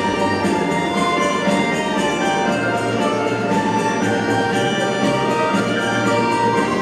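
Orchestral music, with brass among the instruments, playing at an even loudness.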